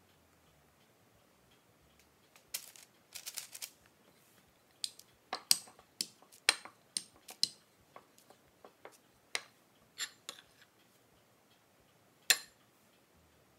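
Wooden rolling pin knocking and clacking against a stone countertop while dough is rolled out: a run of irregular sharp taps, with one louder, ringing clink near the end.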